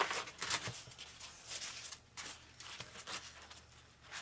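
Hands handling and pressing pieces of foam on a foam RC flying wing: a string of short, irregular rustles and scrapes.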